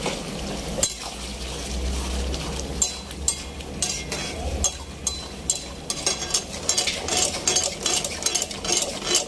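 Karahi curry bubbling and sizzling in a large wok, with a low rumble in the first half. From about three seconds in, a metal ladle scrapes and clinks against the wok as the curry is stirred, and the strokes come thicker near the end.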